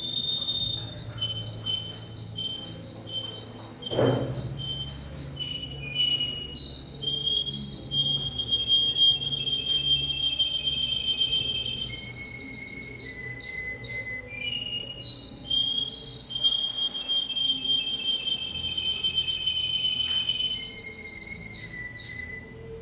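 Male canary singing a long unbroken song: phrases of quickly repeated high notes alternating with long, steady rolling trills. A single sharp knock sounds about four seconds in.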